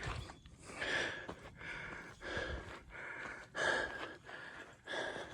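A man breathing hard in regular, heavy breaths from the exertion of hiking uphill in the heat.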